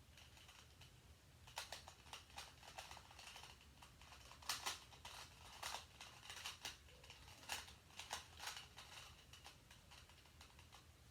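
Faint, irregular plastic clicks and clacks of a twisty puzzle cube being turned by hand, some coming in quick runs.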